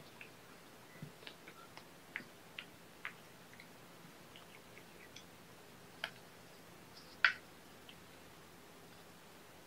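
Scattered light ticks and taps of kittens' paws and claws on a hard floor mat as two kittens wrestle and pounce. A cluster of clicks comes in the first few seconds, with one sharper, louder click about seven seconds in.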